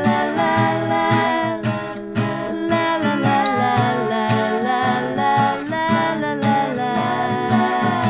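Background music with acoustic guitar strumming under a melody line that glides in pitch.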